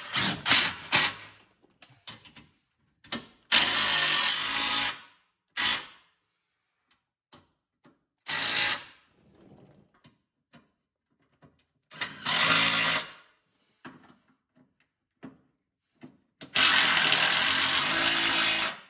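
Power tool with a 13 mm socket driving the rusted skid-plate bolts home in five short runs of one to two seconds each, the last the longest; loud.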